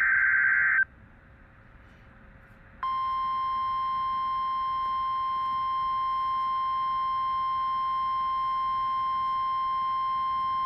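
NOAA Weather Radio Emergency Alert System signal: a second-long screech of SAME header data, then a short gap, then about three seconds in the steady 1050 Hz warning alarm tone comes on and holds. The tone marks the start of a warning broadcast, here a severe thunderstorm warning.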